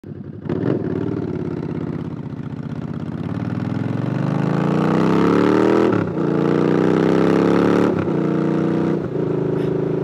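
Harley-Davidson Night Rod Special's straight-piped V-twin pulling away and accelerating hard, its note rising steadily for several seconds. It shifts up about six seconds in and again about eight seconds in, with the engine note dropping briefly at each shift.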